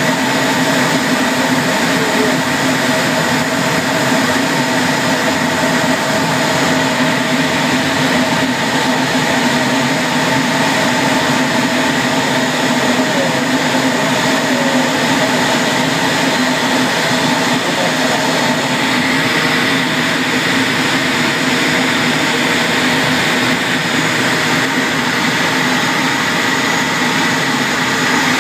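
Eurofighter Typhoon's twin EJ200 jet engines and cockpit air systems running steadily, heard from inside the cockpit: a loud, even hiss with several steady whining tones.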